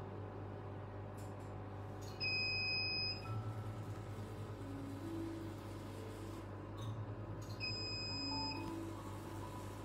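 Cosmetic laser machine beeping twice during a treatment, each a steady high beep about a second long, some five seconds apart, over a steady low hum.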